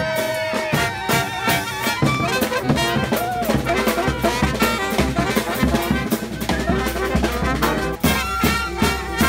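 Street band playing live: saxophone and brass lines over a steady beat of drum and cymbal strokes.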